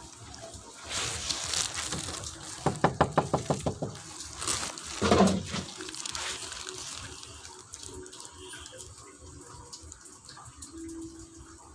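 A quick run of about ten knocks lasting about a second, inside a few seconds of rustling noise, followed by a single low thump.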